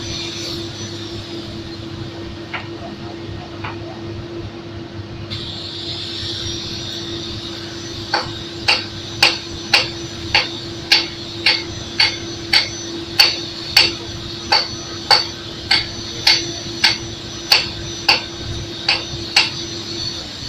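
Hammer blows, about twenty evenly spaced strikes at roughly two a second, beginning about eight seconds in, over a steady engine hum.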